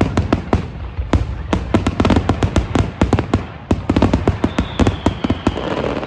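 Fireworks going off in rapid, irregular succession: many sharp cracks and bangs, several a second, with a thin whistling tone near the end.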